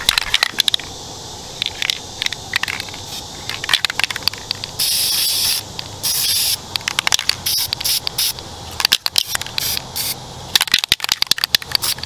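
Aerosol spray-paint can hissing in two short bursts, about five and six seconds in, from a can that is nearly empty. Around the bursts, irregular crackling clicks.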